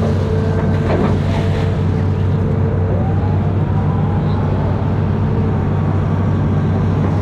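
Amphibious excavator's diesel engine running steadily, with a fainter whine that rises in pitch about three seconds in and holds.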